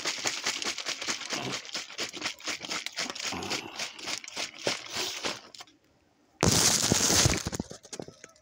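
Plastic bottle of water and MRE lemonade powder being shaken hard, the liquid sloshing in quick irregular strokes for about five and a half seconds. After a brief pause comes a loud burst of noise lasting just over a second.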